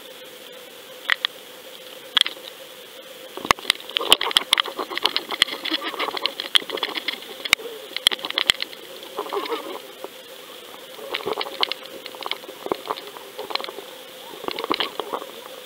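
Rapid clicks, knocks and rattles picked up through an underwater camera housing on a fishing line, in irregular clusters that start about three seconds in, over the camera's own steady electronic hum.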